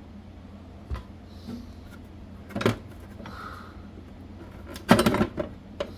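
Old steel hand tools and their case being handled on a table: a soft knock, a sharper clack, then a loud cluster of metallic clatters near the end as pieces are set down and picked up.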